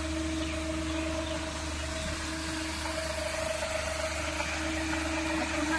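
Paddlewheel pond aerator running: a steady motor hum over the splashing of its paddles churning the water.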